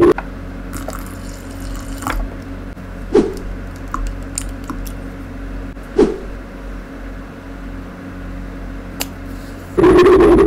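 Slime glue squeezed from a squeeze bottle into a granite mortar of wet glitter slime, giving a few separate wet plops and squelches, the sharpest about three and six seconds in. Near the end the granite pestle starts grinding in the mortar again, a loud steady scraping.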